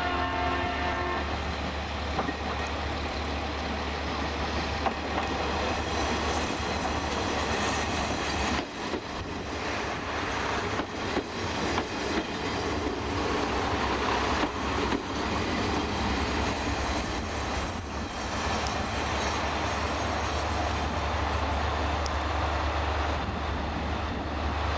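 KiHa 125-400 diesel railcar rolling into the station past the microphone and drawing to a stop, its engine running steadily. Its arrival melody fades out about a second in.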